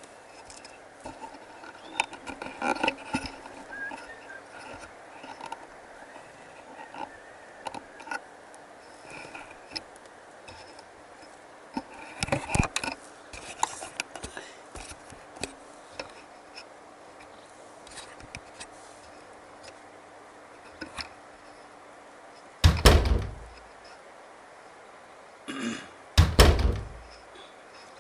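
Gear being handled in a fishing kayak: scattered small clicks and knocks, a busier patch of rattling about halfway, and two heavier, deep thumps near the end.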